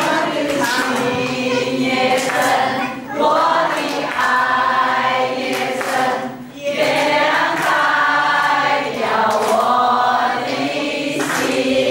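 A group of women singing a song together into a microphone, in phrases broken by short pauses about three and six and a half seconds in.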